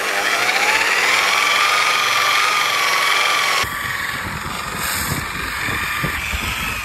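Electric rotary polisher with a polishing pad buffing a boat's topsides: the motor whine climbs in pitch during the first second, then holds steady with a slight waver. A little past halfway the sound changes abruptly, with more rumble under the same whine.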